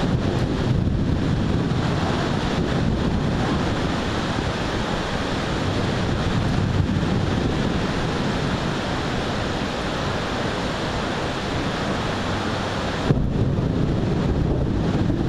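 Storm wind buffeting a small camera's microphone: a steady rushing noise, heaviest in the low end, with one short knock about 13 seconds in.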